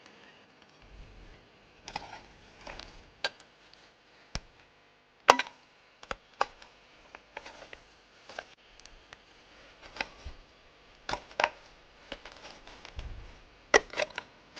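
A hand digging tool striking stony soil: a string of irregular sharp knocks, one every second or so, the loudest about five seconds in.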